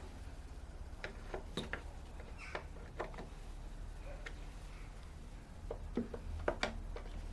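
Irregular light clicks and taps from hands working the plastic air filter housing, over a steady low hum.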